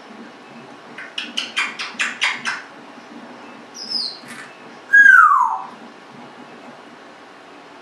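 Congo African grey parrot vocalizing: a quick run of about eight clicks about a second in, a short high whistle, then a loud whistle that falls in pitch about five seconds in.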